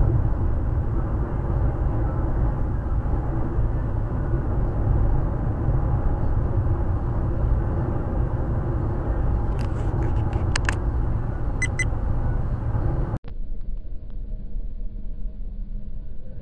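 Steady low rumble of a car driving, road and engine noise as picked up by a dashcam inside the car. A few short clicks come about two-thirds of the way through, and near the end the sound cuts abruptly to a quieter stretch of the same kind of driving noise.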